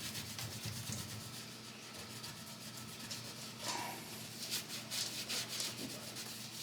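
Rag loaded with damp baking soda scrubbing grease off an exhaust fan: a run of quick, scratchy rubbing strokes, coming thickest a little past the middle.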